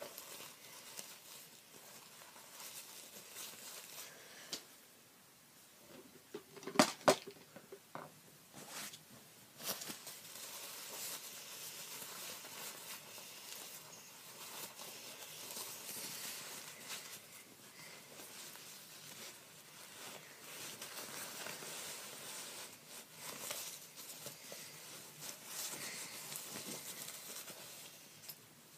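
Disposable diaper and wipes crinkling and rustling as they are unfolded and handled, with two sharp clicks about seven seconds in.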